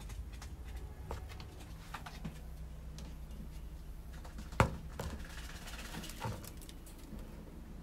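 Light taps and rustling from a wire-mesh rabbit cage, with one sharp click about halfway through, over a steady low hum.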